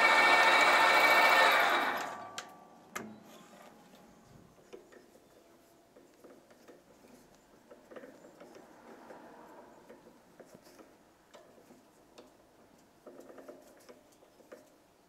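Sieg SC4 bench lathe running steadily while a 3.9 mm drill in the tailstock chuck bores the end of a hex bar; the motor cuts off about two seconds in. After that come only faint clicks and scrapes as a 2BA tap is turned into the hole by hand.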